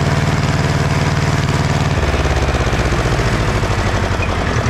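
Ursus C-335 tractor's diesel engine running loud under the pull of a disc harrow; about two seconds in its pitch drops as the engine lugs down under the load.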